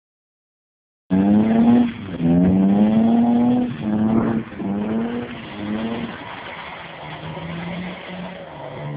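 Audi Coupe 2.8 quattro's V6 engine revved hard in about five bursts while the car slides in a drift, over the hiss of sliding tyres. Sound starts about a second in; after about six seconds the engine settles to a lower, quieter note as the car moves off.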